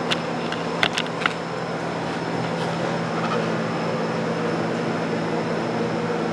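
Steady mechanical hum, with four short sharp clicks in the first second and a half.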